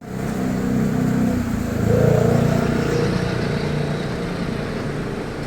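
Yanmar TF85 single-cylinder diesel engine running, driving a two-cylinder Meiji air compressor pump; steady, getting briefly louder about two seconds in.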